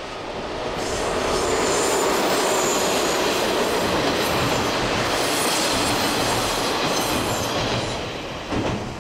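DE10 diesel locomotive running past, hauling two KiHa 47 railcars that are being towed dead. The sound rises over the first second or so and stays steady while the cars go by, with wheels clattering over rail joints and squealing on the curve. It fades near the end.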